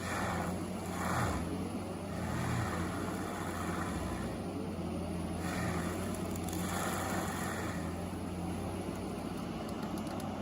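Forestry mulcher's heavy diesel engine running steadily, with repeated swells of grinding noise as the rotor shreds trees and brush.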